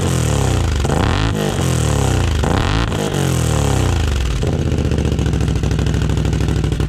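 Can-Am ATV engine breathing through a single RJWC Mud Edition exhaust, revved in about three blips that each rise and fall in pitch, then dropping back to a steady idle about four seconds in.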